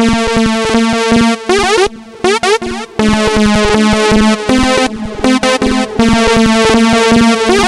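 Electronic synthesizer music: quick repeating pitched notes over a steady beat, thinning out briefly about two seconds in.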